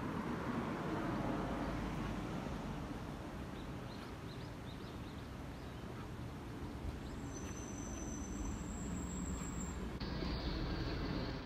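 Steady rumble of vehicle traffic, with a faint thin high tone from about seven to ten seconds in.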